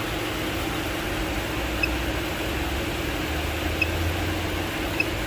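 GMC engine idling with a steady hum and low rumble, misfiring, a fault the mechanic puts down to a valve problem inside the engine. A few short, high chirps sound over it.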